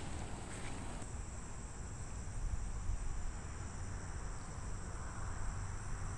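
Insects trilling steadily and high-pitched in the summer grass, over a low steady rumble.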